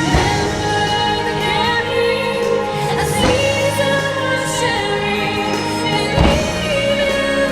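Holiday show music with a choir singing over an orchestra, with three sharp firework bangs about three seconds apart.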